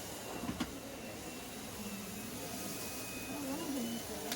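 Faint voices over steady low room noise, with one sharp click about half a second in.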